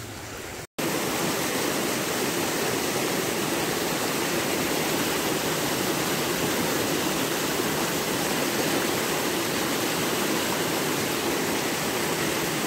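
Small, fast-flowing stream rushing in shallow riffles: a steady rush of water. The sound drops out for an instant less than a second in, then comes back louder and stays steady.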